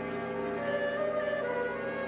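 Background music score: a slow melody of held notes moving step by step over sustained low tones.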